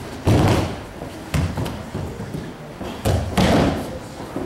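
Bodies hitting the mat as the attacker is thrown in aikido free technique and takes breakfalls: several heavy thuds, one near the start, one about a second in and two close together past three seconds.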